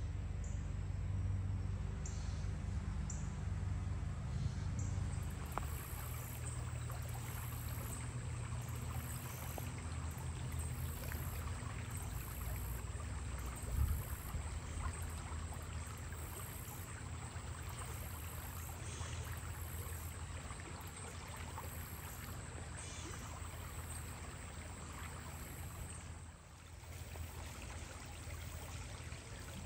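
Spring-fed water running and trickling steadily, over a low steady hum. There is a single thump about halfway through.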